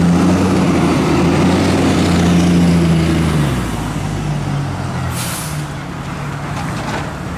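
Fire truck's air horn sounding in long, low blasts that stop about three and a half seconds in, over the truck's running engine. A short, sharp hiss of its air brakes follows about five seconds in.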